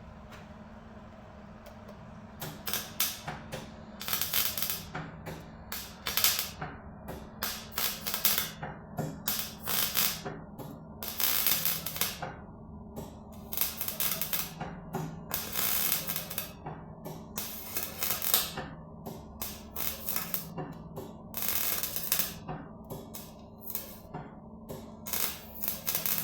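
Welding arc crackling in many short, irregular bursts with brief pauses between them, as new steel patch pieces are stitch-welded into rotted car bodywork. A steady low hum runs underneath.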